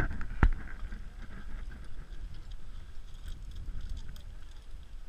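Wind rumbling on the microphone, with a sharp click about half a second in and a few fainter ticks.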